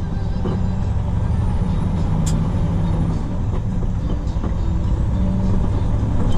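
Semi truck driving at highway speed: a steady diesel engine drone with road noise, with one small click about two seconds in.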